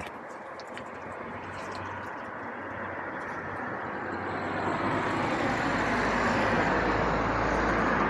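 Engine and road noise of a passing vehicle, a steady rumble that grows gradually louder, deepening from about halfway through.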